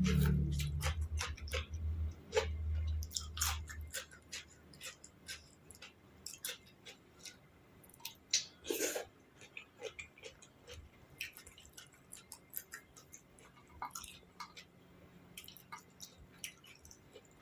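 A person chewing and crunching food close to the microphone, with many irregular wet clicks and smacks. A low hum underneath fades out about four seconds in.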